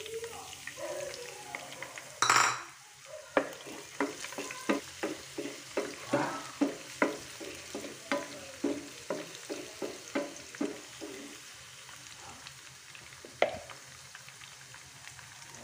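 Chopped garlic sizzling in hot oil in a nonstick frying pan, stirred with a wooden spatula that knocks and scrapes against the pan about twice a second for several seconds. There is one loud clatter about two seconds in, and only the steady sizzle in the last few seconds.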